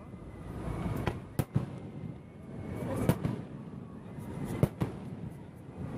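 Fireworks exploding: a series of sharp bangs, the loudest about one and a half and four and a half seconds in, over a low continuous rumble.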